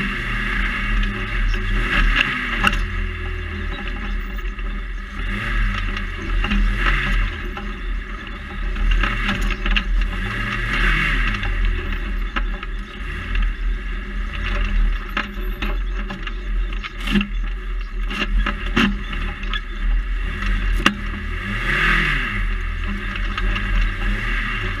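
Ariel Nomad off-road buggy's engine revving up and falling back again and again as it is driven hard over dirt tracks, with a constant low rumble and wind hiss in the open cockpit. Several sharp knocks ring out in the second half as the car crashes over bumps.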